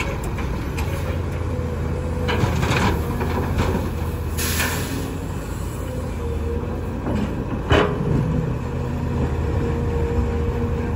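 SANY SY215C hydraulic excavator's diesel engine running steadily under load, with a faint steady whine, as it digs and loads soil. Rushing, scraping noise comes twice in the first half, and a sharp knock near the end of the work cycle.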